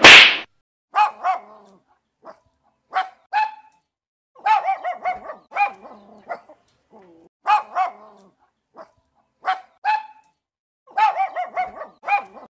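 Puppies barking: short, high-pitched yips that rise and fall in pitch, in clusters of two or three every second or two. A short, loud burst of noise comes right at the start.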